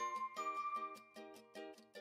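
Background music: a quick, even run of short plucked notes, about six a second, under a long held melody note.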